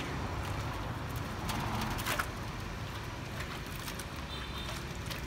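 Water sloshing and splashing lightly in a metal washbasin as a baby monkey is scrubbed with a wet cloth, over a steady low background rumble.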